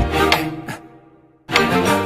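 Background music: a heavy hit with a falling bass tone at the start that fades almost to nothing, then a second strong hit about a second and a half in.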